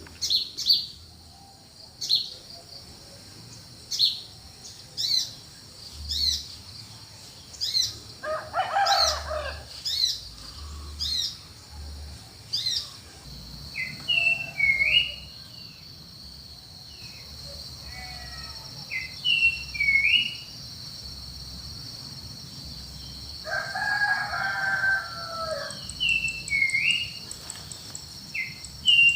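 Countryside birds calling at dawn: short high chirps repeat about once a second at first, then give way to hooked, repeated calls, with two longer, lower calls in between. A steady high insect trill joins about halfway.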